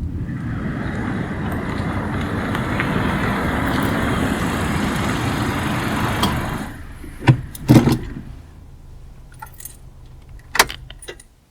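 A car engine running steadily, then cutting off. Two loud thumps follow about a second later, then lighter clicks and jingling and one more thump near the end.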